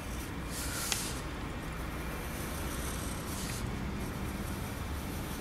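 Pencil scratching on paper in a few separate short strokes as a sketch's lines are darkened, over a low steady hum.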